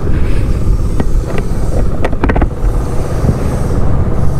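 Wind buffeting the microphone over the steady low drone of a Honda ADV 160 scooter's single-cylinder engine while riding, with a few short clicks about two seconds in.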